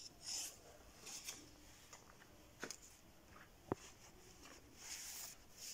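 Faint rustling, the handling noise of a handheld camera on the move, with a few light clicks, the sharpest a little over halfway through, over quiet room tone.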